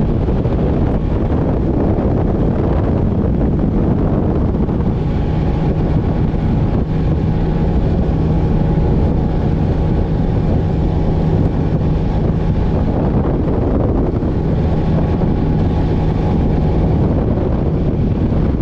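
Bass boat running fast on open water: loud wind rush on the microphone over the steady hum of its outboard motor.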